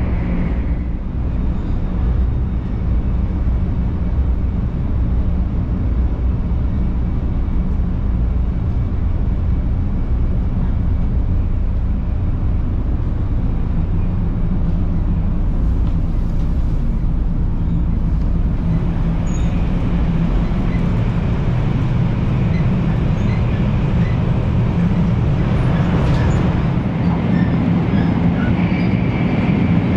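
Cabin running noise of a 500 series Shinkansen: a steady low rumble with hiss, a little heavier in the second half.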